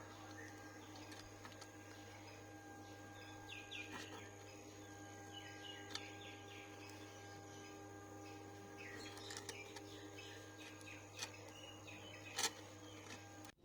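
Quiet background with a steady low hum, faint chirping twice (a few seconds in and again past the middle) and a few light clicks.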